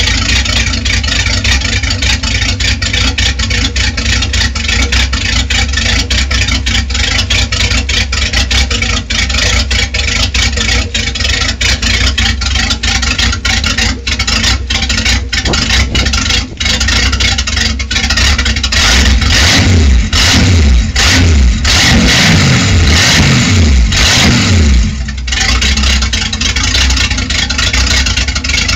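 Boat's V8 sterndrive engine running through its twin transom exhausts on a hose water supply, being test-run after winter lay-up. It idles steadily, is revved up and down several times about two-thirds of the way through, then drops back to idle.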